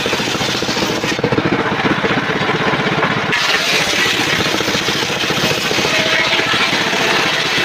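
Homemade table circular saw ripping a mahogany board lengthwise into planks, its motor running steadily with a fast, even pulsing. The high hiss of the blade in the wood drops away about a second in and comes back a couple of seconds later as the cut resumes.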